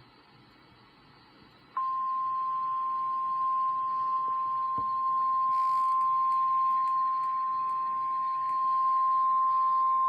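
NOAA Weather Radio warning alarm tone: a single steady 1050 Hz tone that comes in about two seconds in and holds unbroken, the signal that a weather warning broadcast follows.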